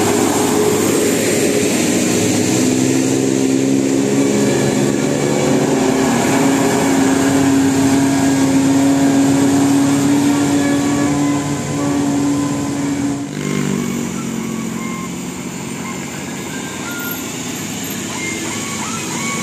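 A large bus on the road gives a steady pitched sound, held for about ten seconds. It cuts off abruptly about thirteen seconds in, leaving quieter road noise with a few short higher tones near the end.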